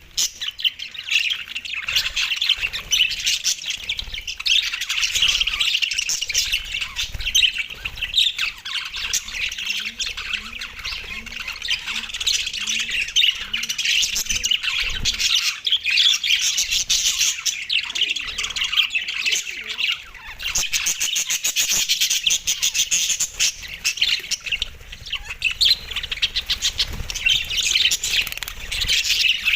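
A group of budgerigars chirping and chattering continuously, with a steady stream of quick, overlapping high calls and harsher squawks.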